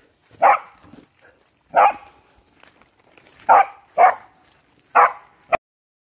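Dog barking: about six short, sharp barks, unevenly spaced a second or so apart, two of them close together around the middle.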